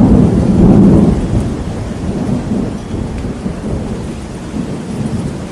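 Thunder rumbling, loudest in the first second and slowly dying away, over steady rain.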